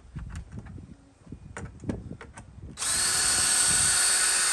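A power drill backing out a taillight screw: a few small clicks and handling knocks, then the drill spins up about three seconds in and runs at a steady pitch for about two seconds.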